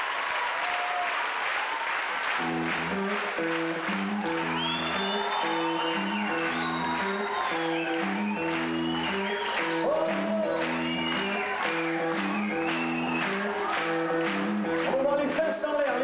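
Live audience applause and cheering, with the clapping falling into a steady beat. About two seconds in, the band starts a repeating chord riff underneath.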